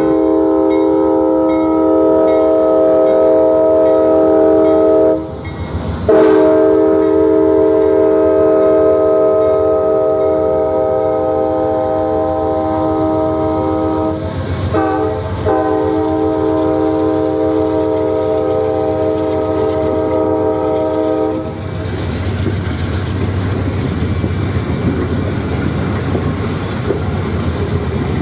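Air horn of a lead Amtrak P42DC diesel locomotive sounding a multi-note chord in the grade-crossing pattern: two long blasts, one short, and one final long blast. It is followed by the rumble and clatter of passenger cars rolling past on the rails.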